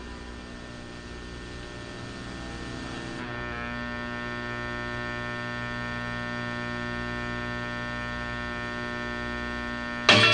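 A steady hum with many overtones; its pattern shifts and swells slightly about three seconds in. Music starts suddenly near the very end.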